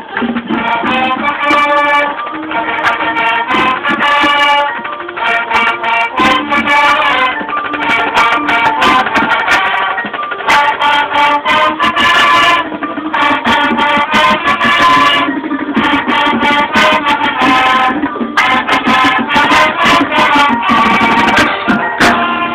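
High school marching band playing its field show, a busy run of pitched melody notes over steady drum hits.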